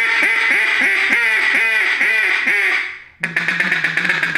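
A custom hand-turned duck call blown in a quacking series of about three quacks a second, then, after a brief break about three seconds in, a faster rattling run of notes.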